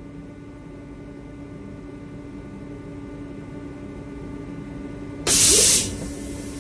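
DMG DMU-50 eVolution 5-axis CNC machining centre running with a steady hum. About five seconds in comes a loud hiss of air lasting about half a second.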